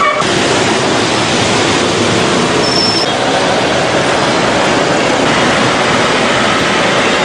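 Dense city road traffic: a steady, loud wash of engine and road noise from many cars, vans, motorcycles and three-wheelers.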